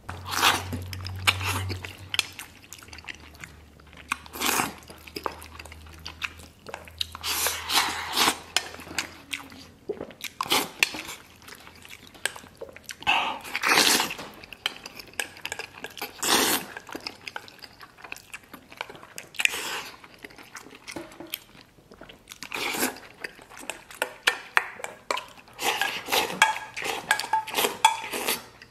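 Close-up eating sounds: wet chewing of spoonfuls of rice and braised pork knuckle, with a wooden spoon knocking and scraping in a metal bowl. Near the end there is a dense run of slurping as the broth is drunk from the bowl.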